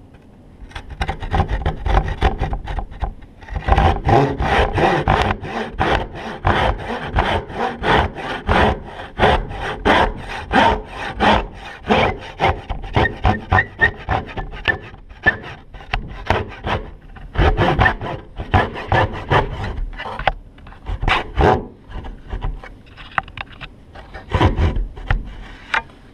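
Hand saw cutting through a wooden board, steady back-and-forth strokes at about two a second, with a couple of short pauses near the end. Heard close up through the saw itself, with the camera mounted on it.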